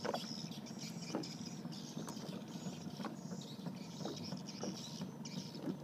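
Small boat rocking on the river, with water lapping and light taps against its hull, about once a second.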